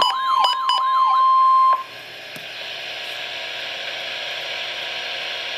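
NOAA Weather Radio warning alarm tone: a steady 1050 Hz tone with a warbling, siren-like alert sweeping over it. The warble stops about a second in, and the steady tone cuts off sharply a moment later. A steady radio hiss follows, the dead air before the warning message.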